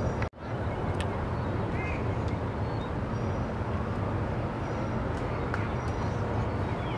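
Steady outdoor background noise with a low rumble, faint voices and a few short high chirps. The sound drops out for a moment about a third of a second in.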